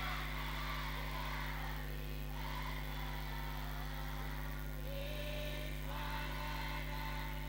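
Faint group of voices singing Islamic sholawat, coming and going in phrases, over a steady low hum.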